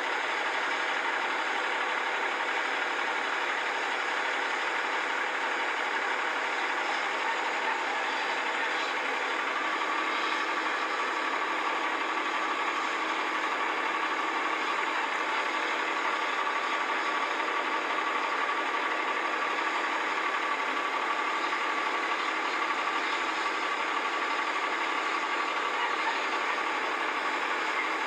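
Steady engine noise with a constant whine, heard through the glass of a vehicle cab.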